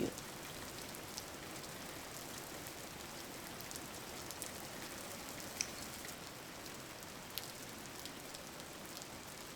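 Steady rain falling, an even hiss with occasional sharper drops ticking.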